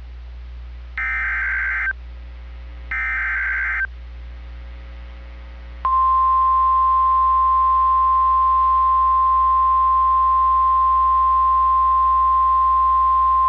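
NOAA Weather Radio alert: the end of one warbling burst of the SAME digital header and then two more, each about a second long, then after a short pause the loud, steady 1050 Hz warning alarm tone, which begins about six seconds in. These tones open a new severe thunderstorm warning broadcast.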